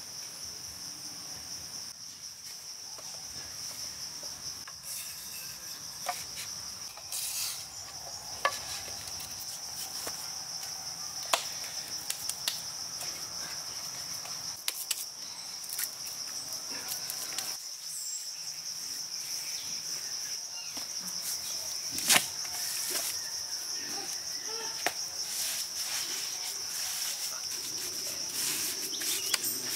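A steady high-pitched chorus of insects, with scattered small clicks and knocks from hands working wet mud.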